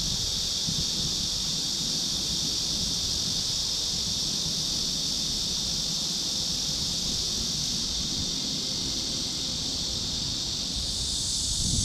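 Outdoor ambience: wind buffeting the microphone as a low rumble, under a steady high-pitched hiss that does not change.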